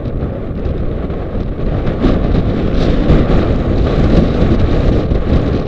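Loud, steady wind rush buffeting the microphone of a camera riding on a mountain bike descending fast on a paved road.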